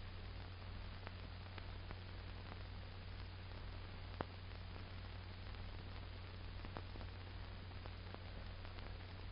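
Steady hiss and low hum of an old film soundtrack, with a few faint clicks, one slightly louder about four seconds in.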